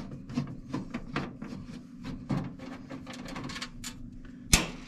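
Screwdriver working a screw out of a range hood insert's sheet-metal panel: a run of short, irregular clicks, then one sharp knock about four and a half seconds in.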